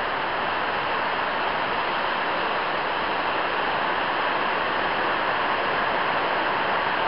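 Heavy rain on a shed roof, heard from inside the shed as a loud, unbroken hiss of noise.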